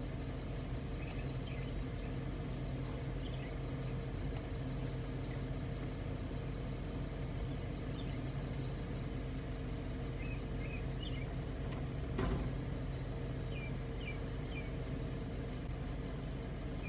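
Car engine idling with a steady low hum, with faint short bird chirps and a single knock about twelve seconds in.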